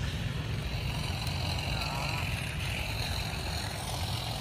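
Cordless battery grass and hedge trimmer with its long cutting blade fitted, running as it cuts through weeds: a steady high whine over a low rumble.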